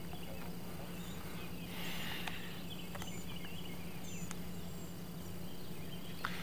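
Outdoor lakeside ambience: small birds chirping and twittering on and off, over a steady low hum, with a few faint clicks.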